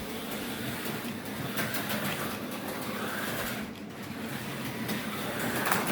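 Tyco HO slot car on a 440x2 chassis lapping a plastic track: a small electric motor whirring with the rattle of its pickups on the rails, getting louder and softer as it goes round. It runs very quiet.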